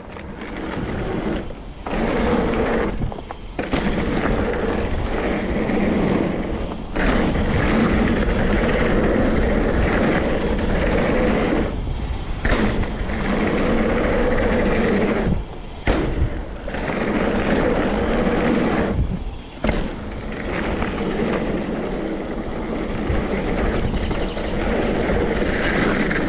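Wind buffeting a handlebar-height action-camera microphone and the Trek Remedy 8 mountain bike's tyres rolling fast over a packed dirt and gravel trail, making a loud continuous rumble. It drops away briefly several times along the way.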